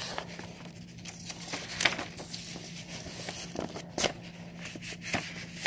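Rustling paper and card with scattered sharp taps and knocks as a vinyl LP in its paper inner sleeve is worked out of a tight record jacket. The sharpest knocks come about two seconds in and again about four seconds in, over a faint steady hum.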